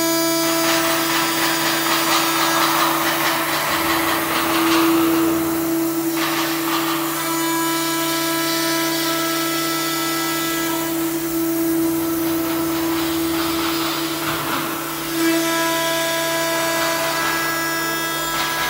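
SKX-CNC-6000 aluminium profile CNC milling machine running its program: a steady high spindle whine, with stretches of rougher cutting noise that come and go as it mills the aluminium profile.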